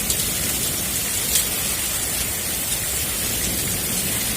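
Heavy rain of a hailstorm pouring down steadily, with a couple of sharp hits, the loudest about a second and a half in.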